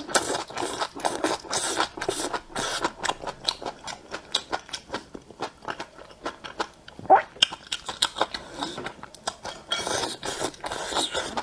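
Close-miked chewing and biting of crisp green vegetable stalks in sticky chili sauce: a quick run of wet crunches and mouth clicks, with one louder smack about seven seconds in.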